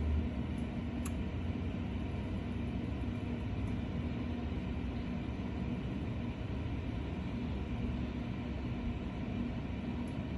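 Steady whooshing of a cooling fan with a low electrical hum, from a CB amplifier setup and its power supply held keyed on an unmodulated carrier (dead key). A couple of faint ticks come about a second in.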